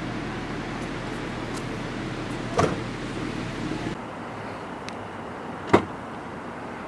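The boot lid of a Mercedes-AMG E53 coupé shutting with a single thump about two and a half seconds in. Later comes a faint tick and then a sharp single click as the boot lock releases from the key fob, over steady outdoor background noise.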